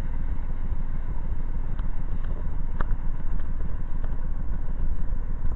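Double-stack intermodal freight train rolling past as its last container cars go by, a continuous low rumble with wind buffeting the microphone. A few faint clicks come through, one clearer near the middle.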